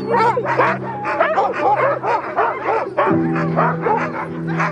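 Harnessed sled huskies barking and yelping, many short calls overlapping at once, over background music with sustained chords that shift about three seconds in.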